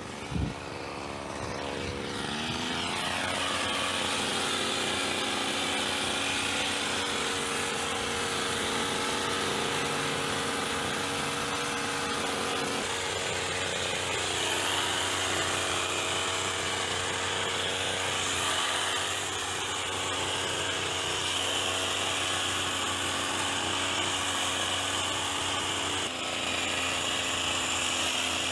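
Petrol hedge trimmer's small engine revving up over the first couple of seconds, then running at high speed with a steady buzz, its pitch dipping and recovering a few times. A short knock sounds just at the start.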